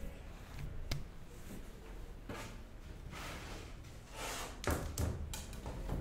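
Handling noises as a wooden board is pulled off a wooden shelf: a sharp click about a second in, a few rubs and scrapes, then several wooden knocks near the end.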